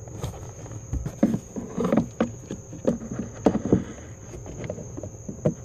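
Scattered plastic clicks and knocks as a new HVAC heat door actuator is turned and pushed onto its door shaft and seated in its mount behind the glove box, over a constant thin high whine.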